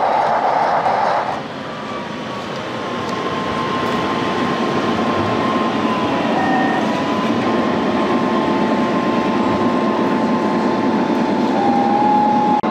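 Gauge 1 model trains running on the layout. A hiss cuts off about a second and a half in, then a steady high whine runs over a rolling running sound that slowly grows louder.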